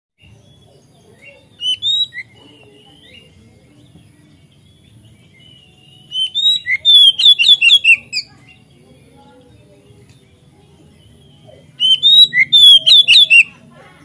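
Oriental magpie-robin singing loud, rapid phrases of sliding whistled notes: a short phrase about two seconds in, then two longer runs in the middle and near the end.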